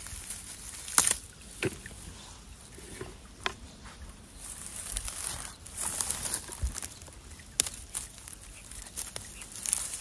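Rustling and crackling of dry forest undergrowth and plant stems, with a handful of sharp snaps, the loudest about a second in.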